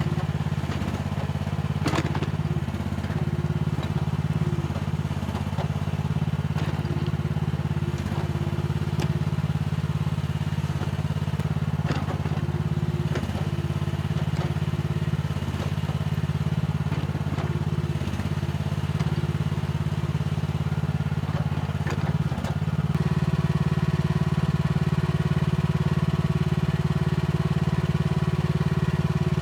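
Mini excavator's engine running steadily under work, with a few short knocks and clanks from the digging. About 23 seconds in, the engine gets louder and its pitch steps up as it takes more load or revs.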